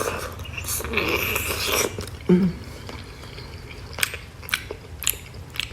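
A person biting into and chewing a juicy soup dumpling, with wet mouth noises, a few short sharp smacks in the second half, and a brief low hum about two seconds in.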